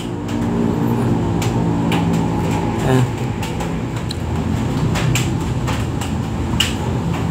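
A steady machine hum with several pitched tones, joined by a few short sharp clicks scattered through it.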